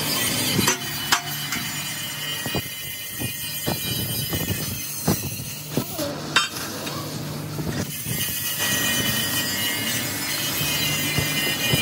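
Sharp metal knocks and clanks in the first several seconds, then the steady hiss of an oxy-fuel cutting torch burning through a steel bar, over a steady low hum.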